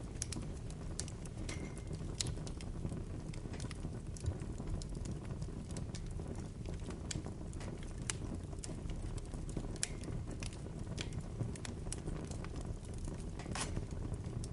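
Bonfire burning: irregular sharp crackles and pops, one every second or so, over a steady low rumble.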